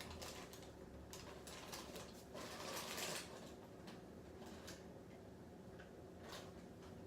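Faint scattered clicks, taps and rustling of things being handled and moved around while someone rummages, with a louder rustle about two and a half to three seconds in, over a low steady hum.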